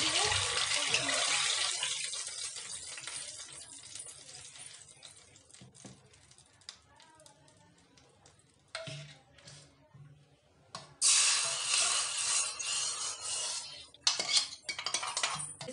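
Hot mustard-seed tadka oil poured into coconut chutney, sizzling loudly and dying away slowly over several seconds. About eleven seconds in, a second loud hiss lasts about three seconds, and metal clinks of the steel pan and ladle follow near the end.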